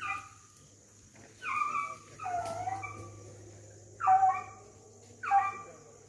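Beagles baying in the brush: about five separate calls a second or so apart, each dropping in pitch, with a longer drawn-out bawl a couple of seconds in.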